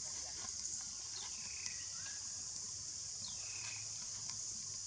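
Steady high-pitched drone of insects in the forest, with a short falling call heard twice about two seconds apart and a single sharp click just after the first call.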